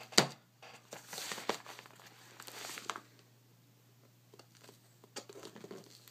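A taped-up, reinforced mailing envelope being handled and opened, with rustling and crinkling. A sharp snap comes at the start, then bursts of rustle, a short lull, and a few light ticks near the end.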